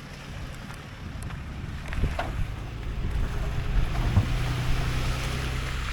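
Wind buffeting a phone microphone during a snowstorm: a steady low rumble that slowly builds, with a faint low hum underneath.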